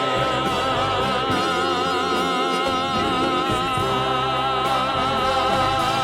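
Gospel song's closing held note, sung with a wide vibrato over sustained accompaniment.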